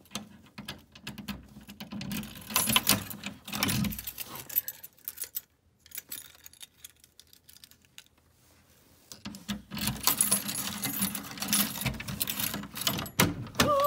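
Keys jangling and a key rattling and clicking in a door lock that is giving trouble. The clicking comes in two spells with a quieter lull of a few seconds between.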